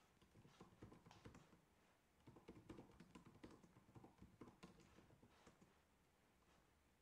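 Faint typing on a computer keyboard: irregular key clicks that thin out near the end.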